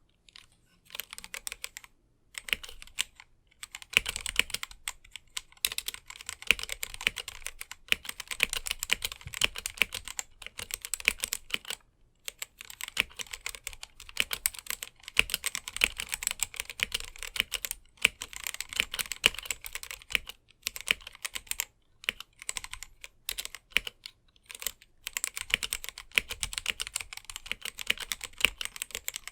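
Fast typing on a GamaKay/Womier K87 mechanical keyboard with stock, unlubed Gateron Black linear switches: dense runs of keystrokes broken by brief pauses.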